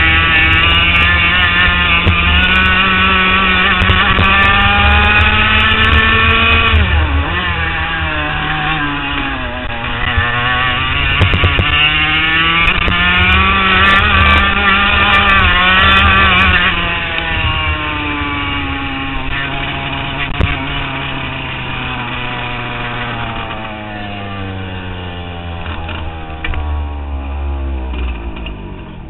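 HPV 100 kart's 100cc two-stroke engine at full throttle, its pitch rising and falling through the corners with a sharp dip about seven seconds in. Over the second half the pitch drops steadily and the engine gets quieter as the kart slows.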